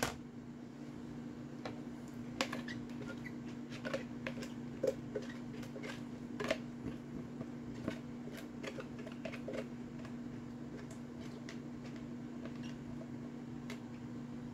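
A spatula scraping and tapping chopped bell peppers out of a plastic Tupperware Power Chef chopper bowl into a pot, in small irregular scrapes and clicks, mostly in the first ten seconds. A steady low hum runs underneath.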